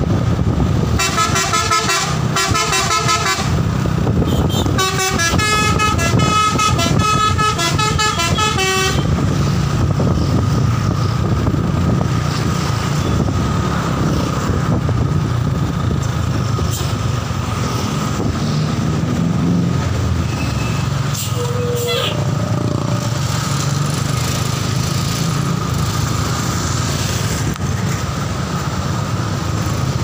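Bus telolet horn, a multi-tone air horn, playing a rapid stepping melody in two bursts during the first nine seconds, then the bus's engine running in traffic. A short horn beep sounds about 21 seconds in.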